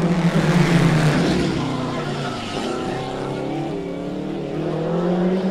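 Vintage two-stroke scooter engine running and revving, its pitch sinking about halfway through and climbing again near the end.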